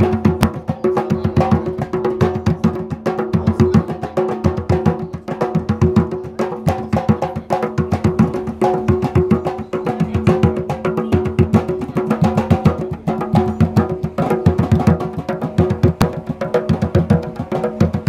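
Several skin-headed, rope-tuned hand drums beaten with bare hands in a fast, continuous rhythm: a dense stream of deep open strokes and sharp slaps several times a second, without a break.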